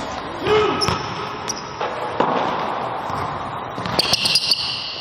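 Basketball bouncing on a hardwood gym floor, a handful of sharp bounces spread irregularly, with short high squeaks of sneakers on the court.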